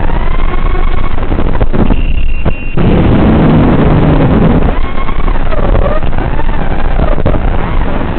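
Racing quadcopter's brushless motors (RotorGeeks 2206 2700 kV) whining in flight under heavy noise, the pitch rising and falling with throttle. About two seconds in the sound briefly thins to a steady high tone, then a heavy low rumble follows for a couple of seconds before the motor whine returns.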